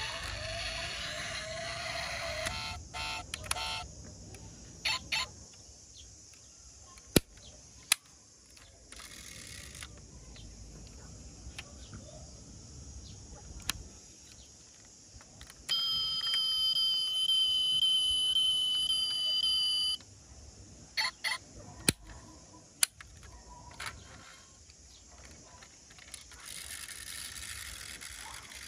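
Die-cast Tesla Cybertruck toy's built-in sound module sounding a steady electronic tone for about four seconds, past the middle. Sharp clicks from the metal model's parts being handled come before and after it.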